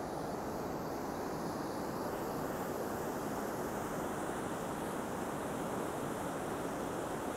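The Fulda river pouring over a low weir: a steady rush of water.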